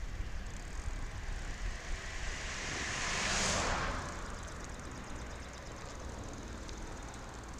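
Low wind rumble on the microphone of a moving bicycle, with a car passing about three seconds in: its tyre and road noise swells to a peak and fades away.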